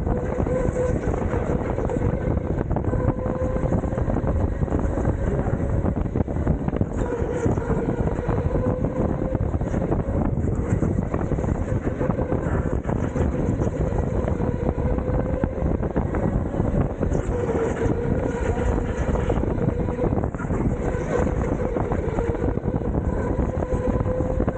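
Rental go-kart's motor running under way: a steady whine whose pitch drifts gently up and down with speed, over a constant rush of wind noise on the onboard microphone.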